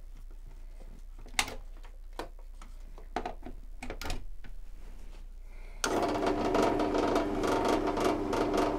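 A few clicks and knocks as the plug is pushed into the wall socket, then the bench drill press's electric motor switches on about six seconds in and runs at a steady hum, ready to drill.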